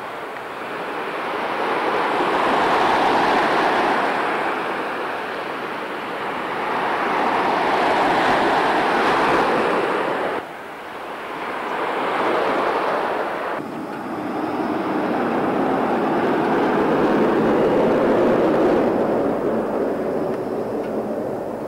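Loud outdoor rushing noise that swells and fades every four or five seconds. It breaks off sharply twice, in the middle of the stretch.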